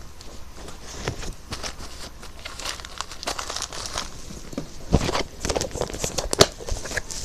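Crinkling and light clicking of small items being handled, with a few louder knocks about five seconds in and again shortly after.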